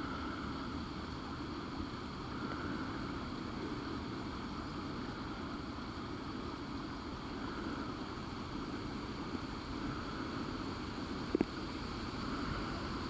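Steady, muffled underwater noise of pool water picked up by a submerged camera, swelling gently every couple of seconds. A sharp double click, the loudest sound, comes near the end.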